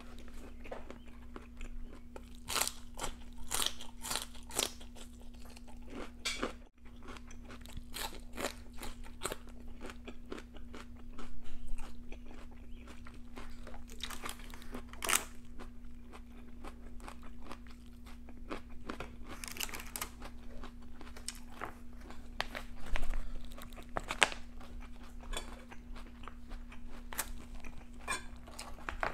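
Close-miked crunching and chewing of raw vegetables, a celery stick at first: irregular crisp crunches in runs with short pauses between bites. A faint steady hum runs underneath.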